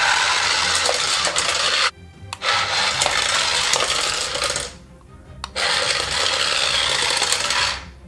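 Remote-control toy pram's small motor and plastic wheels running across a tile floor with a hard rattle, in three runs of about two seconds each with short stops between.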